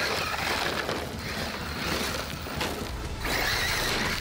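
Arrma Mojave 6S BLX 1/7-scale brushless RC desert truck driving hard on a rocky dirt slope: its electric drive and tires spraying dirt and gravel, swelling and easing in surges, with background music underneath.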